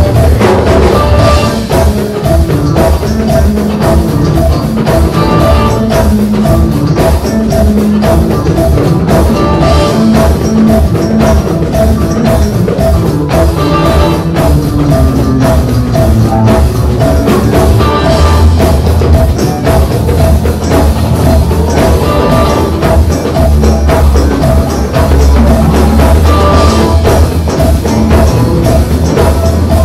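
Live band playing an instrumental groove, with electric bass guitar out front over drum kit and percussion.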